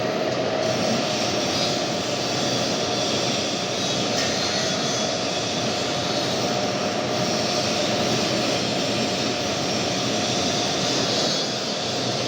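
Machine-shop machinery running steadily: an even whirring noise with a faint steady hum.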